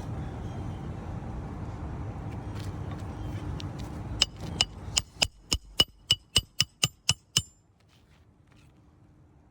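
A hammer tapping a roofing nail home through an asphalt shingle: about a dozen quick metallic strikes, three to four a second, each with a short ringing ping. The strikes start about four seconds in and stop about halfway through. Before them there is a steady background rush.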